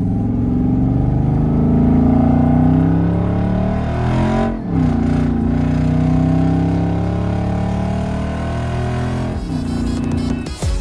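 Car engine and road noise heard from inside the cabin while driving. The engine pitch climbs slowly, drops sharply about four and a half seconds in, then climbs again, with another drop near the end.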